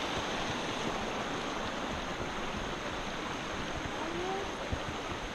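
Steady rush of a creek flowing over rocks, with one faint knock about three-quarters of the way through.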